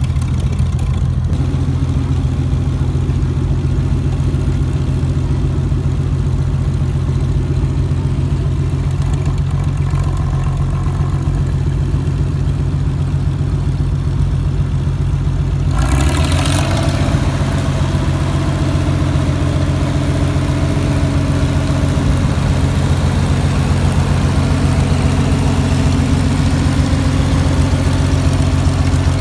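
1938 Co-op No. 3 tractor's engine running steadily at low speed as the tractor is driven off the trailer ramps and across the grass; about halfway through it becomes louder and brighter.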